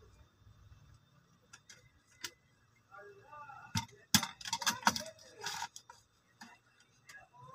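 Small hard objects handled on a shop counter: scattered light clicks, then a cluster of sharp clicks and clinks about four to six seconds in.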